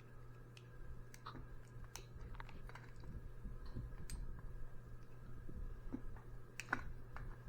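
Scattered small clicks and scrapes of a screwdriver and wires being worked at a ceiling fan's pull-chain switch, as a wire is released from its push-in terminal.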